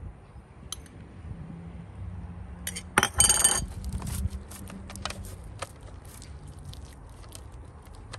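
Disposable aluminium foil pan crinkling and crackling as gloved hands press and rub marinade into a cut of meat, loudest in a short burst about three seconds in, then scattered light ticks.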